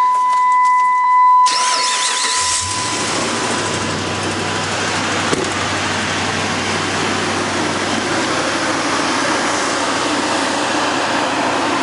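2008 Dodge Ram 1500 starting up: a steady high beep sounds for about a second and a half, then the starter cranks briefly. The engine catches about two and a half seconds in and settles into a steady idle, starting right up.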